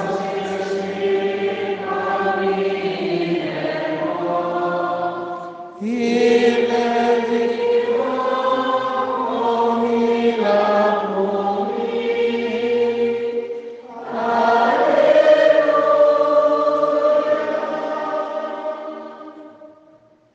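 A choir singing the Mass's memorial acclamation after the consecration as a slow chant. It comes in three long phrases of held notes, with short breaths between them, and fades out near the end.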